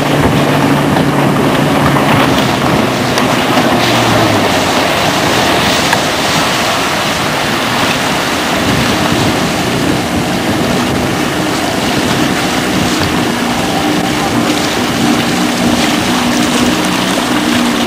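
Outboard motor of a small skiff running on the water, its pitch dropping about four seconds in as the boat eases off, then humming again near the end, over a steady rush of wind and water noise.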